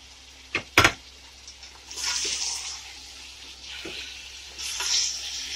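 Onions and bitter-gourd seeds frying in oil in a metal pot, stirred with a spatula. There are two sharp knocks of the spatula against the pot about a second in, then sizzling and scraping that swells twice.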